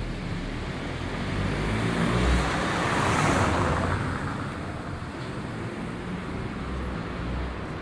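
A car driving slowly past on cobblestones, its engine and tyre noise swelling to a peak about three seconds in and then fading away.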